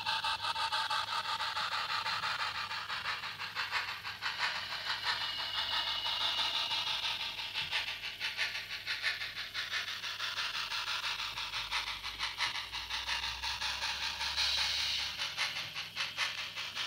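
Zimo DCC sound decoder in a model of the GWR Castle class locomotive Manorbier Castle, playing steam exhaust chuffs with hiss through its small speaker as the model runs. The chuffs come in a rapid, even beat and sound thin, with little bass.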